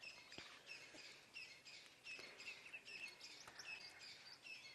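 Faint, high-pitched chirping calls repeated several times a second, each short note dipping slightly in pitch.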